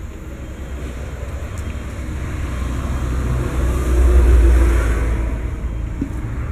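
A road vehicle passing by, its low rumble and tyre noise swelling to a peak about four seconds in and then fading.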